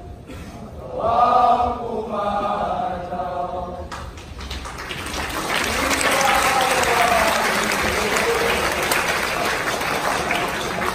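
A group of voices chanting in unison for the first few seconds, closing the choral recitation. Audience applause breaks out suddenly about four seconds in and carries on, with some voices over it.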